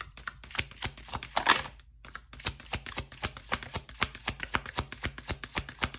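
A deck of tarot cards being shuffled by hand: a rapid run of card clicks, briefly pausing about two seconds in.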